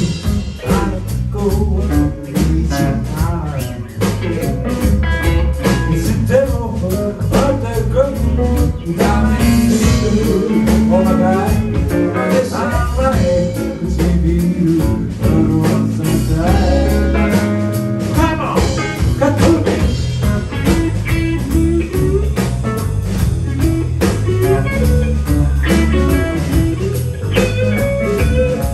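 Live rock band playing: two electric guitars, electric bass and a drum kit, through the club's PA.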